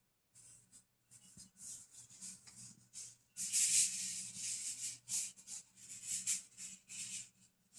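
Irregular bursts of rustling and scratching, loudest about halfway through, over a faint steady low hum.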